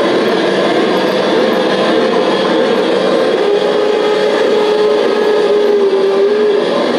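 LGB G-scale model locomotive running along the track: a steady noise with a whine from its motor and gears that wavers at first, drops a little in pitch about halfway through, then fades just before the end.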